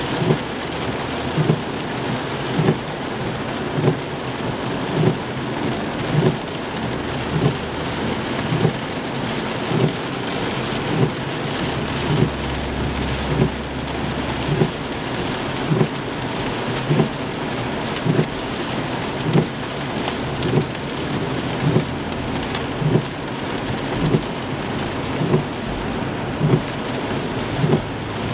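Heavy rain pelting a car's windshield and roof, heard from inside the cabin, with the windshield wipers thumping at the end of each sweep about every 1.2 seconds. A low rumble lasts about two seconds around the middle.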